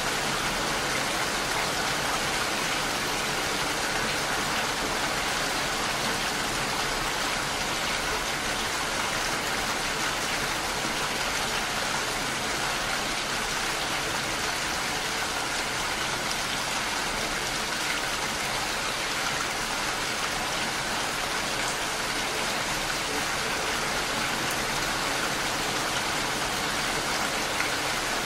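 Steady rainfall: an even, continuous hiss of rain with no breaks or single events.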